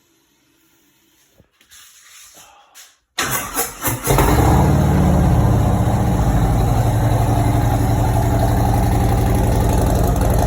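Harley-Davidson V-twin on a cold start: the starter cranks with a few quick pulses about three seconds in, the engine catches a second later and then idles loudly and steadily. It runs through Tab Performance 2-into-2 exhaust pipes with 50-calibre mufflers and baffles.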